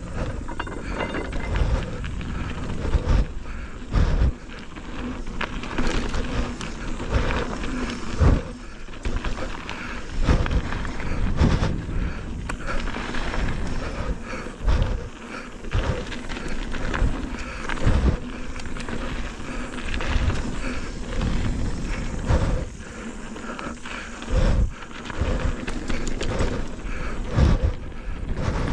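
Mountain bike ridden along a dirt trail: a steady rush of tyre and wind noise, broken by frequent, irregular heavy thumps as the bike hits bumps.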